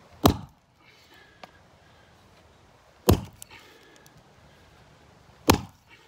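Axe blade chopping into a weathered wooden beam on the ground: three sharp, solid strikes, about two and a half seconds apart.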